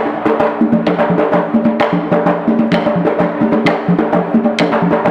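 Samba percussion: drums playing a fast, dense rhythm with a stronger hit about once a second.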